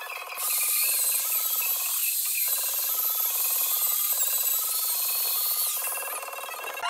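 Handheld electric rotary tool with a carving bit running at high speed and grinding into wood, a steady high whine with a rough grinding hiss. It starts about half a second in and drops away shortly before the end.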